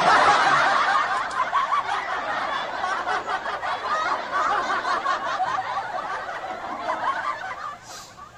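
Laughter sound effect: many voices snickering and chuckling together, cutting in suddenly and dying away near the end.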